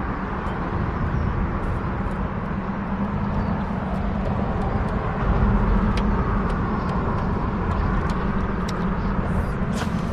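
Steady rumble of road traffic on a highway bridge, swelling a little about halfway through as a vehicle goes by, with a few faint clicks.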